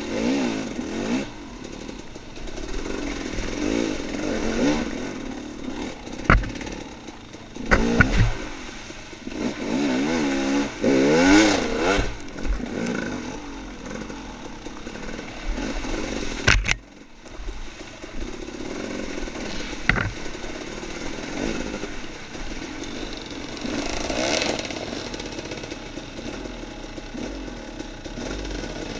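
Dirt bike engine revving up and down as it is ridden along a woods trail, with a few sharp knocks and clatters.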